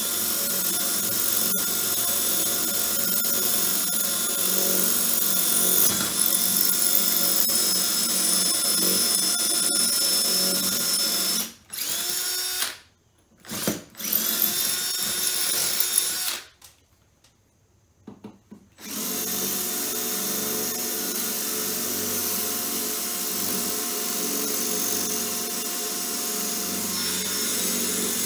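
A power tool motor running steadily, cutting out briefly a few times around the middle, the longest stop about two seconds.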